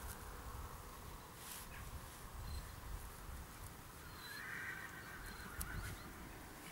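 A tied-up dog whining faintly: a few short high whines, then one longer whine lasting more than a second about four seconds in.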